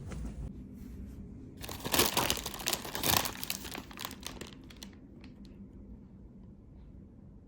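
Crinkling and rustling: a dense crackling burst about two seconds in that lasts over a second, then a few scattered crinkles and clicks.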